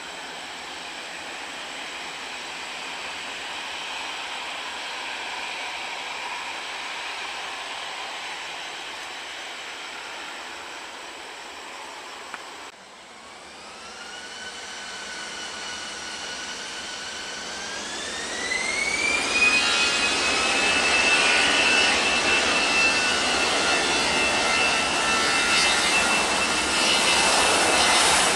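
Airbus A320 jet engines: a steady distant hum at first. After a sudden cut about halfway, the engines' whine rises in pitch and grows loud as they spool up to high thrust, then holds as a loud, steady whine and roar.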